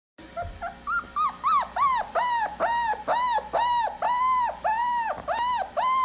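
A dog's rapid series of high whines, each rising and falling in pitch, about two to three a second, growing louder over the first couple of seconds.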